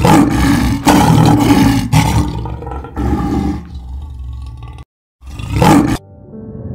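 Several loud, rough animal calls in a row, the longest about a second and a half, with a brief cut to silence before the last one.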